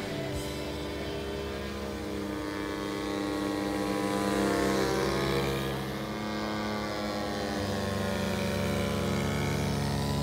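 Engine and propeller of a giant-scale radio-control aerobatic biplane in flight, a steady buzzing note. The pitch climbs and gets louder about halfway through, then drops back as the plane changes direction.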